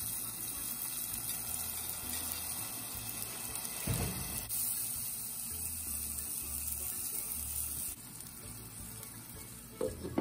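Sliced onions, tomatoes and green chillies sizzling in hot oil in a clay pot, a steady hiss that drops off about eight seconds in. There is a knock about four seconds in, and near the end a few clinks as a glass lid is set on the pot.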